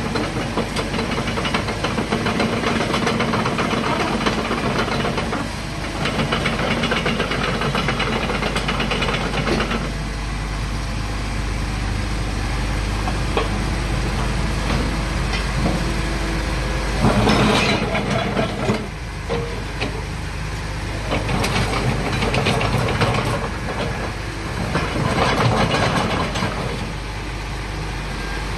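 Diesel engine of a Caterpillar 307.5 mini excavator running steadily, swelling in several louder spells, the strongest about two-thirds of the way through.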